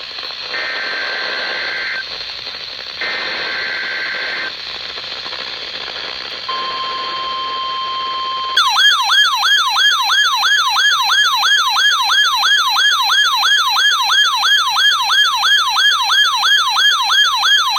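NOAA Weather Radio Emergency Alert System signal over radio hiss. Two short bursts of shrill two-tone SAME header data come first. After a pause, a steady 1050 Hz warning alarm tone sounds for about two seconds. Then, about halfway through, an electronic alert alarm starts, warbling up and down about two and a half times a second.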